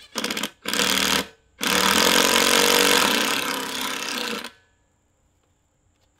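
Festool TID 18 cordless impact driver hammering structural screws through a steel beam bracket into a wooden post: two short bursts, then a longer run of about three seconds as a screw is driven home.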